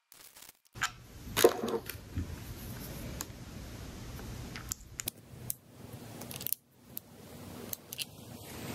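Scattered small clicks and taps of a plastic handlebar clamp, a screw and a ridged washer being handled and fitted together, over a faint steady hum.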